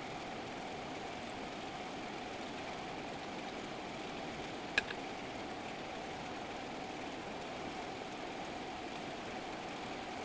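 A steady mechanical hum, with one sharp click about five seconds in.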